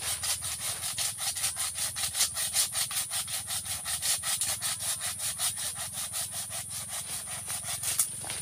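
Hand saw cutting through a wooden branch, in quick, even back-and-forth strokes of about five a second.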